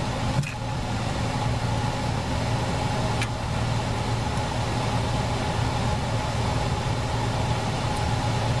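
Electric fan running with a steady, even hum, with one faint click about three seconds in.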